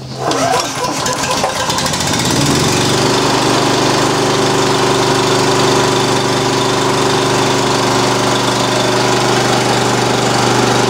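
Nuvair MCH16 high-pressure breathing-air compressor and its small petrol engine starting up, then after about two seconds settling into a steady run.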